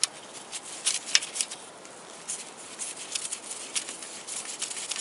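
A 10 mm socket on an extension being fitted onto and turned by hand on the oil pump's mounting bolts: irregular light metallic clicks and taps, with some rubbing.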